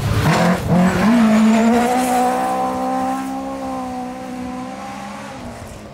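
Rally car engine at full throttle going past, its note climbing in quick steps in the first second, then held high and fading as the car pulls away.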